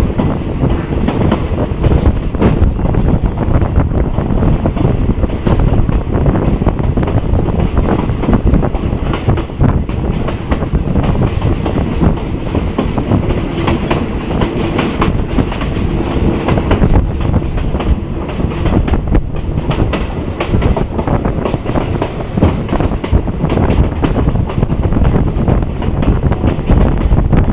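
A passenger train running, heard from a coach window: a steady loud rumble with the clatter of steel wheels over the rail joints.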